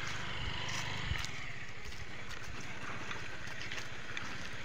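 Motorcycle engine running steadily at low revs, with a low rumble that is strongest in the first second and a few faint clicks over it.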